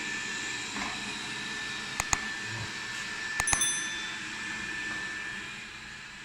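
A robot vacuum cleaner running with a steady motor whine. There are two sharp clicks about two seconds in, and a brief metallic ring a second and a half later.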